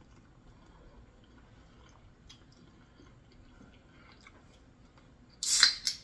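Faint close-up chewing of barbecued rib tips, with small wet mouth clicks. About five and a half seconds in come two brief, loud bursts of noise.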